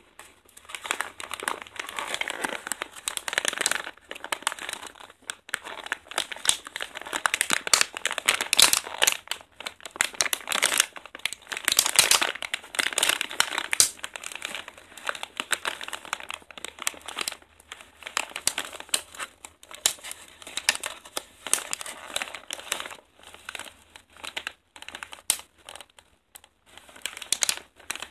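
Thin clear plastic packaging of a pack of daifuku mochi crinkling as hands handle it and pull the plastic tray out of its bag. The crackling is dense and irregular, with a few short pauses.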